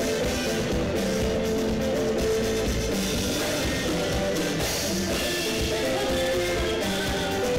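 A live band playing in the Zimbabwean guitar-band style: drum kit, bass guitar and guitar in a continuous groove at a steady level.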